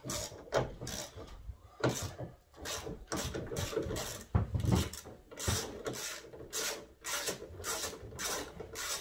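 Rhythmic back-and-forth scraping, about two strokes a second, like a hand tool being worked over a surface.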